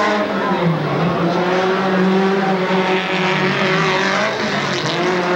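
Off-road race vehicles' engines running hard, the pitch rising and falling as the drivers accelerate and lift off through the course.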